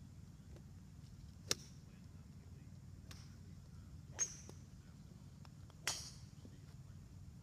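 Three sharp clicks of golf clubs striking balls, about one and a half, four and six seconds in, the first the loudest, over a low steady background rumble.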